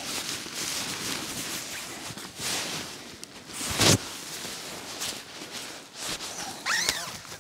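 Fabric of a Lanshan 2 Pro trekking-pole tent rustling and flapping as it is handled and raised during pitching. A sharp, loud rustle a little before halfway is the loudest moment, and a short high squeak comes near the end.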